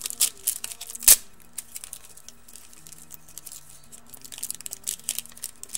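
Trading-card pack wrapper being torn open and crinkled by hand, with a string of sharp crackles and one loud snap about a second in; the pack is proving hard to open.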